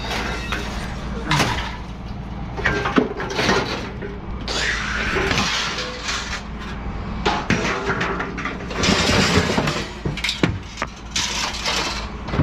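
Household junk being thrown out onto a pile: a string of crashes and clatters, with glass breaking among them. The longest crashes come about halfway through and again near the end.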